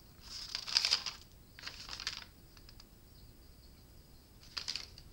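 Paper instruction leaflet being unfolded and handled, rustling in three short bursts: about a second in, again around two seconds, and once more near the end.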